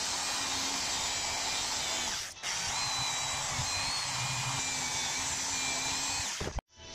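Metal-cutting band saw running and cutting through a steel plate: a steady hiss with a thin whine over it. It breaks off briefly about a third of the way in and cuts off suddenly near the end.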